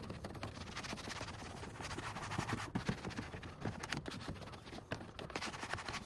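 Microfiber towel wiping soap foam off a car's textured plastic interior door panel: an irregular scratchy rubbing with many small knocks of hand and towel against the panel.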